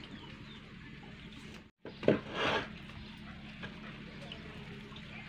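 Kitchen utensils handled at a wood-fired clay stove: a single sharp knock about two seconds in, followed by a short scraping rustle, over a steady low hum.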